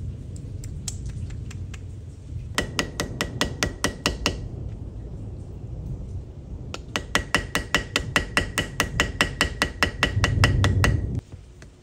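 Restored Stanley hand drill being cranked, clicking steadily at about seven clicks a second in two spells, a short one and a longer one, over a low rumble. The rumble grows louder and then stops suddenly near the end.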